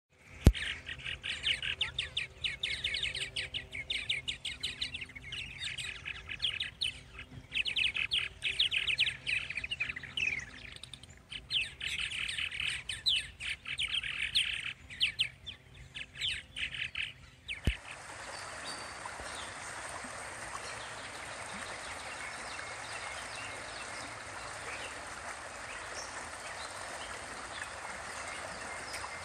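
A colony of purple martins chattering, with dense, overlapping chirps and squawks. A little past halfway it cuts abruptly to the steady rush of a shallow creek running over rocks.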